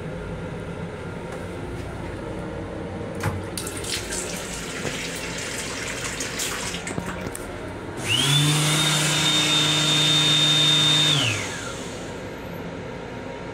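Water from an M7 railcar restroom faucet running and splashing into the sink, followed by a small electric motor whirring with a high whine for about three seconds, spinning up and winding down near the end.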